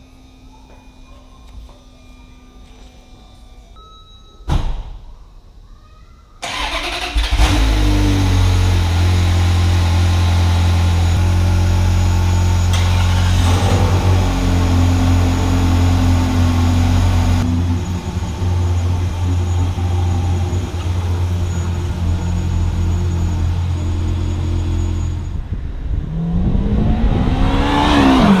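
A Ferrari V8 cold start: a short thump about four seconds in, then the engine cranks and catches about six seconds in and settles into a steady, fast cold idle. Near the end the revs rise in pitch.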